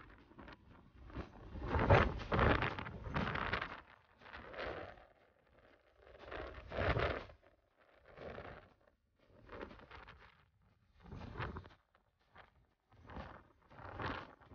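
Wind gusting over the phone's microphone on an open ferry deck, coming in irregular rushing bursts with quiet gaps between them.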